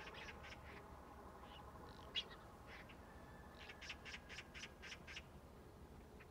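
Faint, short, harsh bird calls: a single sharper note about two seconds in, then a quick run of about eight notes around four seconds in, over a faint low steady hum.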